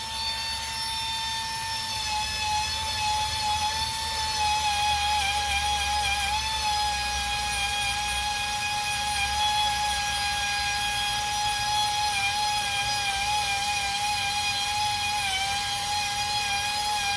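Pneumatic 90-degree angle grinder fitted with a green 3M Roloc surface-prep disc, running at reduced air pressure while it cleans old gasket material off a cast-iron engine block. It makes a steady high whine whose pitch wavers slightly as the disc is worked against the surface.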